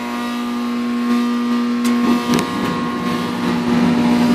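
Gas furnace running with a loud, steady mechanical hum from its fan motor. About two seconds in come a few sharp clicks, after which a rougher rushing noise builds on top of the hum.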